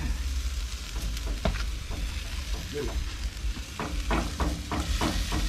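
Halved jerk chickens sizzling on a drum grill as sauce is brushed onto them. From about four seconds in, a quick run of taps and scrapes from the basting brush, about four a second, over a steady low rumble.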